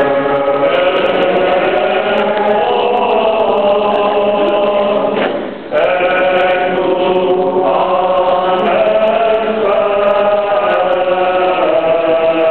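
Greek Orthodox Paschal chant sung by a choir of many voices, with long held notes and a brief pause about five seconds in.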